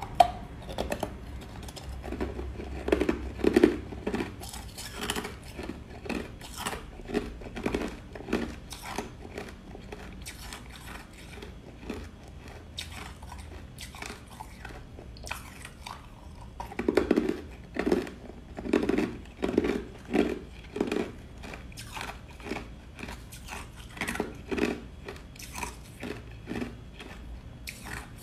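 Crushed ice being bitten and chewed, a dense run of sharp crunches, with two louder bouts of rapid crunching, one about three seconds in and another past the halfway point.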